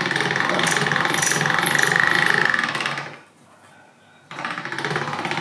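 Chrome hand-cranked pasta machine's rollers and gears rattling as dough is cranked through at the widest setting. It stops for about a second a little past three seconds in, then the cranking starts again.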